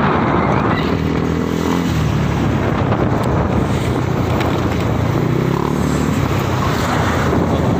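Motorcycle engine running while riding along the road, its note shifting up and down a few times with the throttle.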